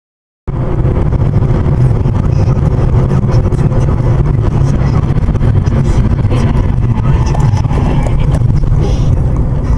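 Steady low rumble of a car driving at highway speed, road and engine noise heard from inside the cabin through a dashcam microphone. It starts abruptly about half a second in and holds even throughout.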